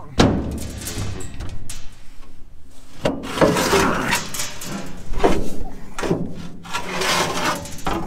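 Sheet-metal knocks, bangs and scrapes from the sliding door of a steel grain wagon being worked by hand. Several sharp hits come at uneven intervals, with the busiest stretch about three to four seconds in.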